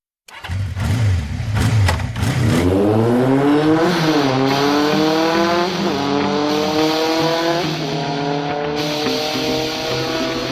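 A vehicle engine accelerating hard, its pitch climbing, then dropping back and climbing again about four, six and eight seconds in, as it shifts up through the gears.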